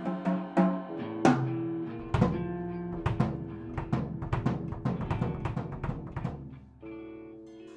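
A four-piece band of drum kit, two guitars and bass playing together, with no singing. The drums hit faster from about three seconds in, then drop out near the end, leaving held notes ringing.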